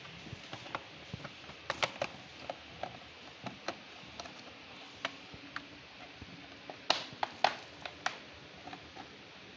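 Plastic clicks and snaps of an Asus 412CE laptop's bottom cover clips releasing as a pry tool works around its edge. The clicks come irregularly, with the loudest snaps about two seconds in and again around seven seconds.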